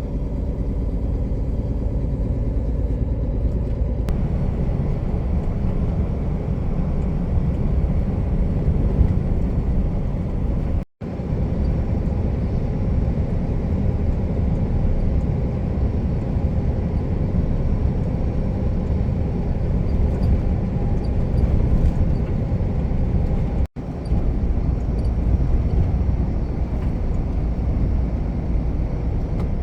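Container truck's diesel engine and road rumble heard from the cab while driving, a steady heavy low rumble. The sound cuts out to silence for an instant twice, about eleven seconds in and again about thirteen seconds later.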